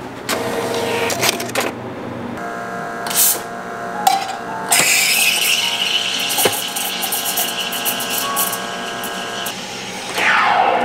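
Espresso machine making a latte: a few clicks, then the pump humming steadily while the shot pours. About two seconds later the steam wand starts hissing into the milk pitcher, and near the end the hiss sweeps down in pitch before stopping.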